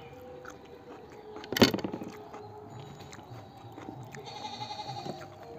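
Goat bleating, with a wavering call about four seconds in. A sudden, much louder short sound comes about one and a half seconds in.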